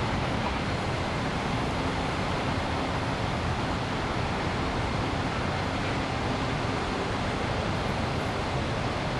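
Steady city traffic noise: an even rumble and hiss of passing vehicles, with no single event standing out.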